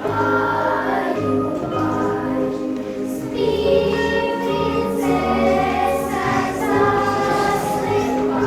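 Music with choral singing: sustained held chords over a bass line, growing fuller about three seconds in.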